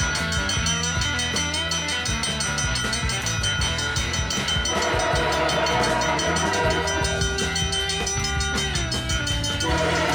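Freight locomotive's air horn sounding a long, held chord that shifts pitch about halfway through, over the rumble of the approaching train, with the level-crossing bell ringing steadily behind it.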